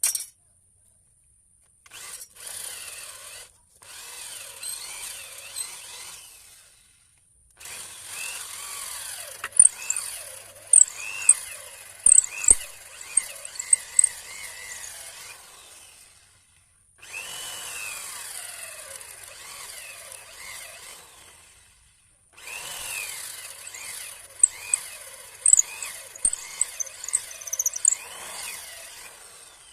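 Electric hand drill boring into wood to rough out a mortise, in five runs of a few seconds each with short pauses between. Its pitch wavers as it loads in the cut, and the longer runs carry many sharp snaps and cracks.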